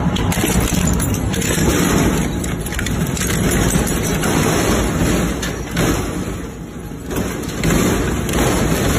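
Heavy industrial crusher breaking up material: a dense, loud grinding and crunching noise that surges unevenly, easing briefly about six seconds in.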